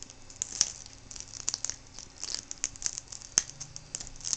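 Small clicks, taps and crinkling as fingers work a ribbon cable and its tape into the connector on the back of a replacement laptop LCD panel, with one sharper click a little over three seconds in.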